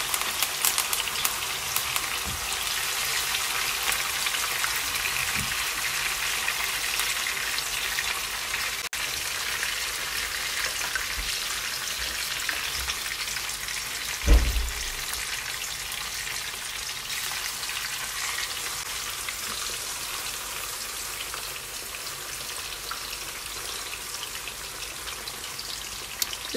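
Kingfish steaks frying in hot oil with thyme and garlic: a steady sizzle with fine crackles, busiest in the first second. A single dull thump sounds about halfway through.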